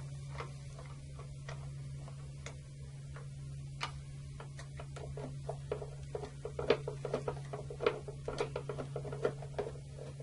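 Hand screwdriver driving the front-cover screws into a circuit breaker: scattered light ticks and clicks, getting quicker and denser from about halfway through, over a steady low hum.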